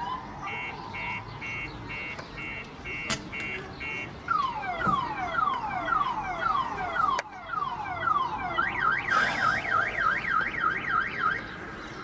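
Car alarm siren cycling through its tones: beeping about twice a second, then a string of falling whoops, then a fast up-and-down warble. It has been set off by a man smashing the parked cars.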